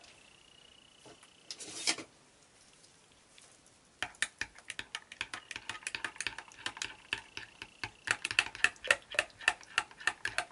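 A utensil stirring mica colourant into soap batter in a glass measuring cup, clicking and tapping rapidly against the glass, several times a second. The stirring starts about four seconds in and gets louder near the end, after a brief rustle near two seconds in.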